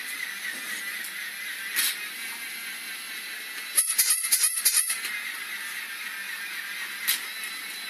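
A battery-powered toy rabbit whirring steadily, with a burst of rapid clattering clicks about four seconds in that lasts about a second, and single sharp clicks near two and seven seconds in, as it hops over a tiled floor.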